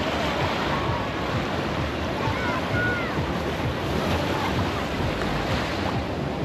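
Ocean surf washing steadily, mixed with wind buffeting the microphone. A few short, faint high chirps come through about two to three seconds in.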